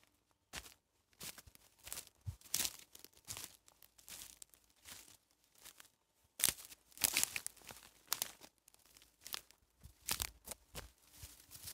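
Footsteps crunching and snapping through dry twigs, dead branches and forest litter, an uneven run of steps with a short pause about halfway.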